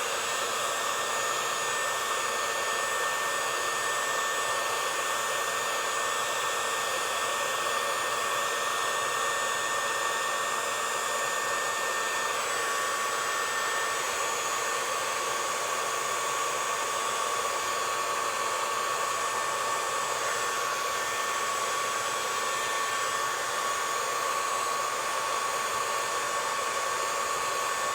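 A heating tool runs steadily on a bent grille bar, making a continuous blowing hiss with a faint steady whine, as the heat softens the metal to straighten it.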